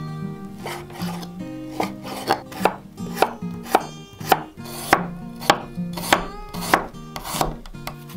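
Santoku knife chopping on a wooden cutting board, slicing raw pork and then fresh ginger: about a dozen sharp knocks of the blade on the board, roughly two a second, over soft background music.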